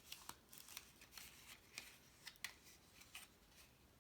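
Faint crisp rustles and ticks of cardstock being handled and folded into place, about half a dozen short ones spread out.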